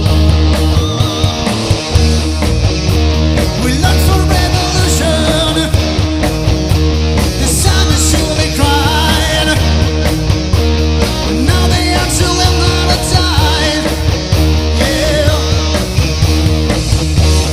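Rock band playing live, loud and driving, with electric guitar, bass and drums and a singing voice over them.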